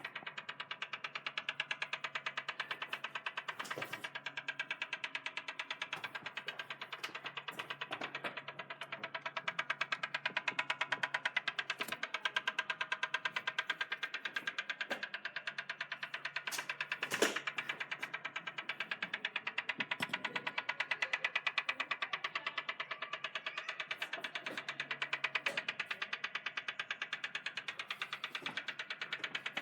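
Rapid, evenly spaced mechanical clicking from a BMW M4 that sets in when the door is unlocked, going on steadily with a few sharper knocks among the ticks and one louder knock about two-thirds of the way in; an unwanted fault noise from the car.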